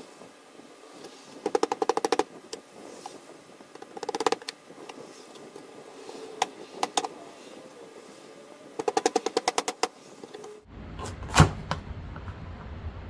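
Large kitchen knife being worked through the hard rind of a spaghetti squash, in three bursts of rapid crackling clicks with a few single clicks between. Near the end comes one loud knock on the wooden cutting board.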